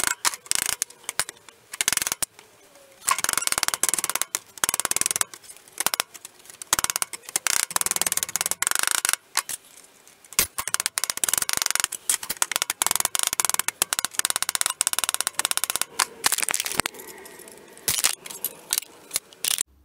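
Rapid hammer blows on zinc-treated sheet steel clamped to the edge of a workbench, bending the edge over to form a curved return flange. The blows come in quick runs with short pauses between them.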